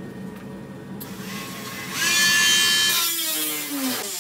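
Handheld rotary tool switched on about halfway through, spinning up to a high steady whine, then switched off so that its pitch falls as the motor winds down near the end.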